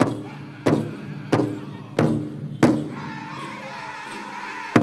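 Powwow drum group singing a chicken dance contest song in unison over a big drum struck in a slow, even beat of about one and a half strokes a second. The drumbeat stops about three seconds in, leaving one held sung note, and a single drum stroke comes back near the end.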